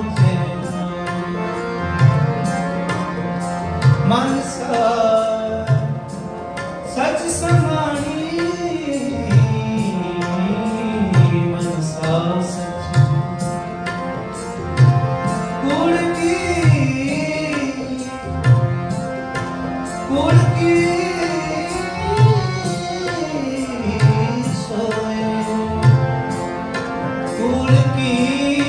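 Gurbani kirtan: harmonium and tabla playing in a steady rhythm while a man sings a sliding, drawn-out melody.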